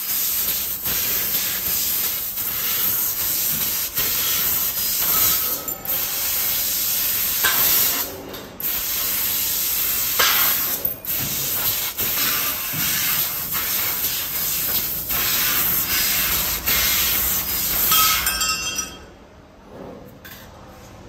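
Metal laser tube cutter cutting a rectangular steel tube: a loud, steady hiss of assist gas at the cutting head, broken by a few brief pauses between cuts. It stops about eighteen seconds in, leaving quieter shop background.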